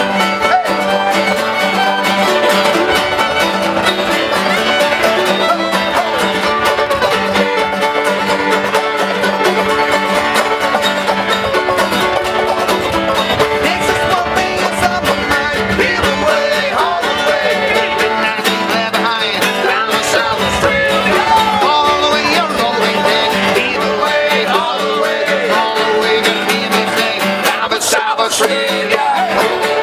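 Continuous acoustic folk-style music with plucked strings, at a steady loud level.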